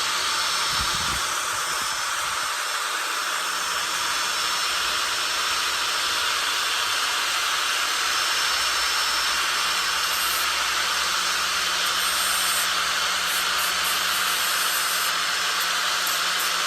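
Electric grinder with a 60-grit disc running steadily and grinding the tips of a lawn-mower recoil starter's metal pawls down, heard as a steady, even hiss. The pawls are being shaved to stop them rattling while the engine runs.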